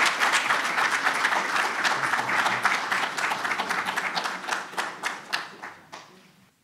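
Small audience applauding, thinning to a few scattered claps and dying away near the end.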